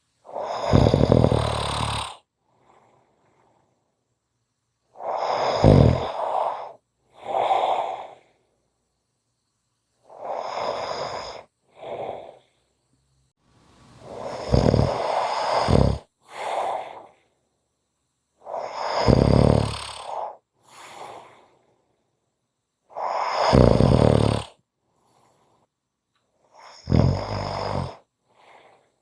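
A person snoring: seven loud, rasping snores about every four to five seconds, each but the last followed by a shorter, quieter breath, with silence in between.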